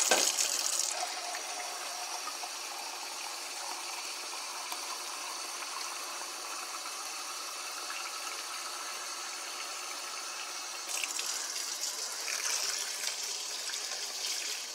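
Kitchen faucet running steadily into a stainless-steel sink and into a plastic measuring jug held under the stream. About eleven seconds in the water sound gets louder and more splashy.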